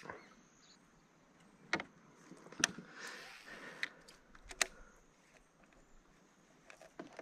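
A handful of sharp clicks and knocks from fishing gear and the kayak, with a faint whirring in the middle stretch, typical of a baitcaster being cast and reeled in.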